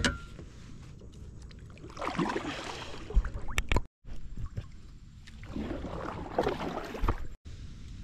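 Kayak paddle strokes: water splashing and gurgling off the blade in two bursts of about a second and a half each, with a few sharp knocks against the hull, over a steady low rumble of wind on the microphone.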